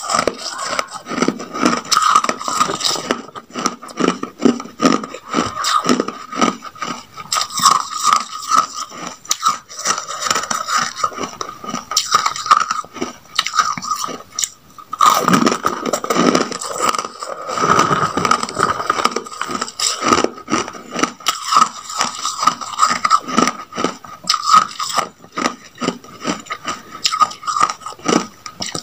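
Close-up crunching of hard white ice chunks being bitten and chewed, a dense, irregular run of sharp cracks and crumbling, with a brief pause about halfway.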